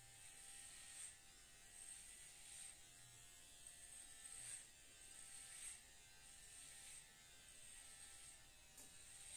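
Electric hair clippers running with a faint, steady buzz while cutting hair close to the scalp, swelling a little with each stroke.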